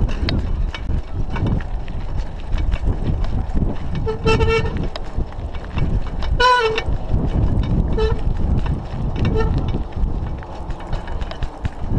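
A vehicle horn tooting four times: a half-second toot about four seconds in, a longer, louder one about two seconds later, then two short ones. Underneath runs the steady rumble and rattle of a bicycle riding over a rough dirt road, with wind on the microphone.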